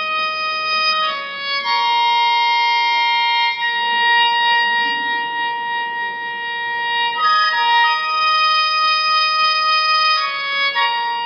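A melody instrument playing a slow line of long, held notes, moving to a new pitch every second or few seconds.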